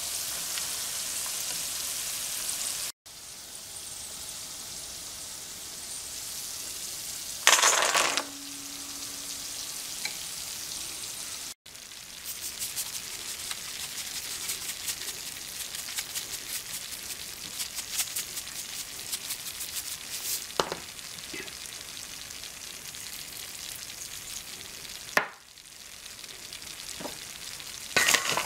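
Peanuts sizzling in hot frying oil, with a brief clatter about a quarter of the way through. Later, dense small clicks as the fried peanuts are stirred in a stainless steel bowl with a wooden spatula.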